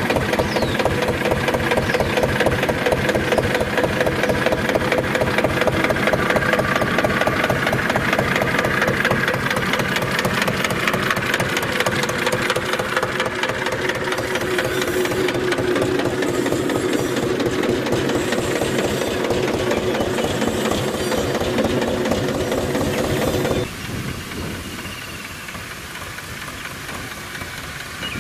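Small farm tractor's diesel engine running steadily under load while pulling a disc harrow through soil, with an even rapid chugging. About 24 seconds in it drops suddenly to a quieter, more distant running.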